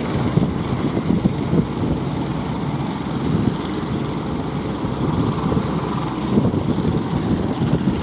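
Engine of a wooden outrigger fishing boat running steadily under load as the boat pushes out through breaking waves, with wind on the microphone.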